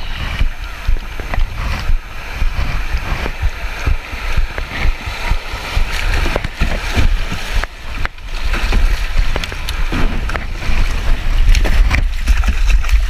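Kayak paddled through a creek riffle: paddle strokes splashing and fast water rushing past the hull, with heavy wind buffeting on the microphone. It grows louder over the last few seconds as the boat runs into rougher water.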